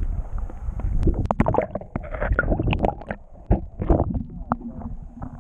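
Water sloshing and gurgling around an underwater action camera, with uneven knocks and splashes as the camera is brought up through the surface.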